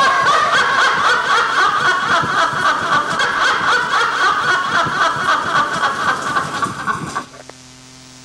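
A woman's high-pitched cackling laugh, held for about seven seconds, then cutting off suddenly to a faint steady low hum.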